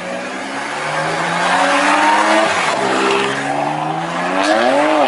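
BMW coupe's engine revving hard while its tyres squeal as the car slides through a turn. The engine note climbs, drops about two and a half seconds in, then climbs again.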